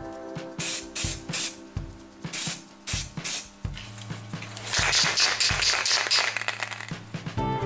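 Aerosol spray paint can spraying: about six short sprays, then one longer spray of about two seconds starting about halfway through.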